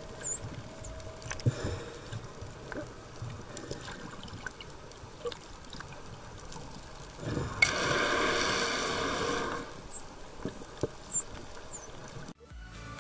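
Dolphins whistling underwater: a few high rising-and-falling whistles near the start and again about ten seconds in, with scattered sharp clicks. About eight seconds in comes a two-second burst of a scuba diver's exhaled regulator bubbles, the loudest sound.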